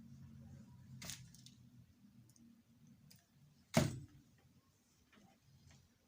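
A single sharp knock a little before four seconds in, with a lighter click about a second in, over a faint low hum that fades away in the first two seconds.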